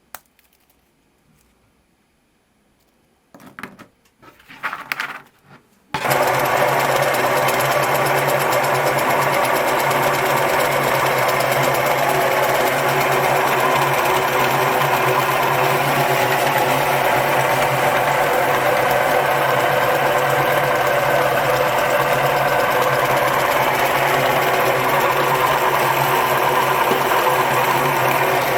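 Electric meat grinder switched on about six seconds in, its motor then running with a steady, loud hum. Before it starts there is a click and a few seconds of short rustling handling noises.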